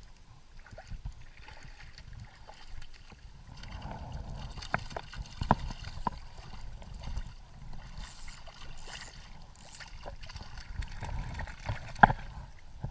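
Kayak on a pond: water gurgling and lapping with low rumbling handling noise, broken by several sharp knocks against the hull, the loudest near the end.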